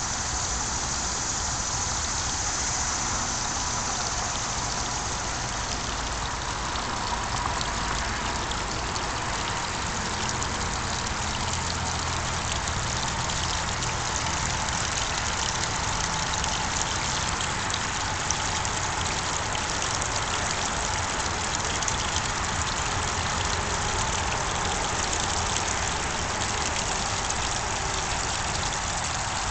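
Water splashing steadily into a garden pond from its waterfall and fountain, with a low steady rumble underneath.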